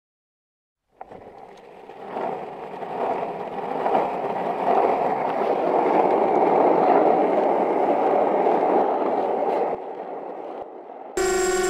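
Skateboard wheels rolling on a hard platform surface. The rumble builds over the first few seconds as a rider comes closer, then drops off about ten seconds in. Music cuts in just before the end.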